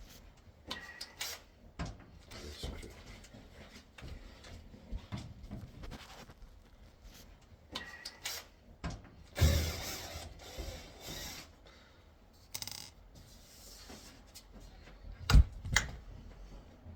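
Tools and metal and plastic washer parts being handled during disassembly: scattered clicks and light knocks, a louder rattling stretch about nine seconds in, and a sharp knock a couple of seconds before the end.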